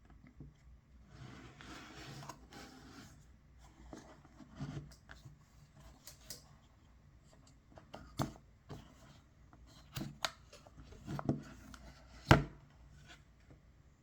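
A pocket knife and its packaging being handled: soft rustling at first, then several sharp clicks and knocks, the loudest near the end.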